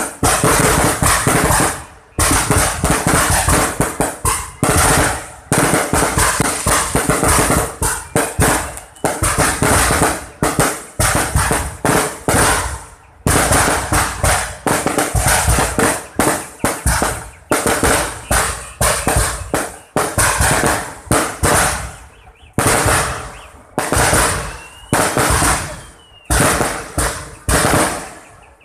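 Aerial fireworks display: rapid volleys of shell bursts going off in dense clusters, bang after bang with crackling, separated by brief gaps of a fraction of a second.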